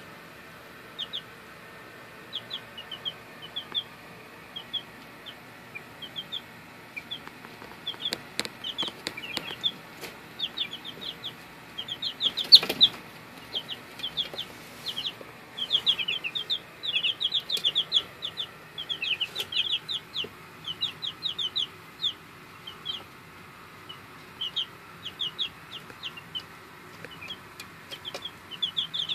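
A brood of six-day-old chicks peeping: many short, high cheeps in scattered clusters, busiest through the middle of the clip. A few sharp knocks come in among them, the loudest about halfway through.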